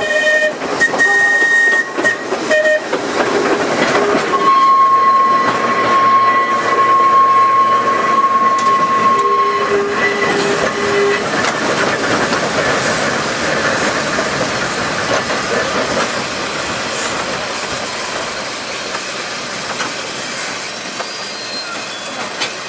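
Open crossbench electric tramcar of the Manx Electric Railway running on its rails. Steel wheels squeal in steady high tones on a curve through the first ten seconds or so over the rolling rumble and clatter. The car then runs on more quietly.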